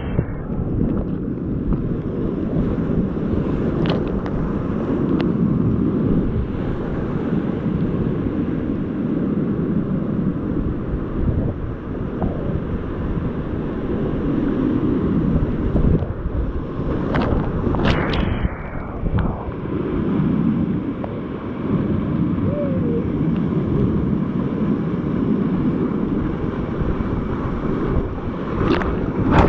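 Whitewater rapids rushing loudly and steadily around a kayak paddling through them. Now and then a splash hits close by, the clearest about 18 seconds in and near the end.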